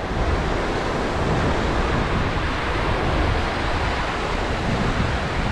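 Steady ocean surf washing on the shore, mixed with wind rumbling on the microphone.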